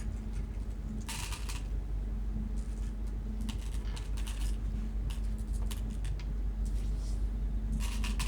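Go stones clicking and clattering: a short rattle of stones about a second in, then scattered single clicks and a last clatter near the end, over a steady low hum.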